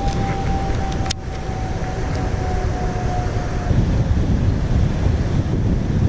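Wind buffeting the camera microphone, a continuous low rumble. A single sharp click comes about a second in, and a faint steady high hum stops about two-thirds of the way through.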